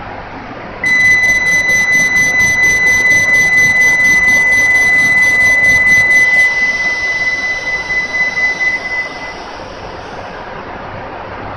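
Station departure signal on a Shinkansen platform: a steady high electronic tone with a fast, even ticking. The ticking stops after about five and a half seconds, and the tone fades over the next few seconds, leaving a low station hum.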